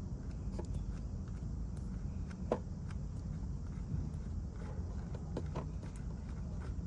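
Scattered light clicks and taps of a hand tool working the motorcycle's oil drain plug loose, over a steady low rumble.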